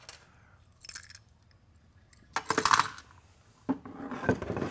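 Metal parts of a 4L65E automatic transmission clinking and clattering on a steel workbench as they are handled: light clicks about a second in, then a louder metallic clatter about two and a half seconds in.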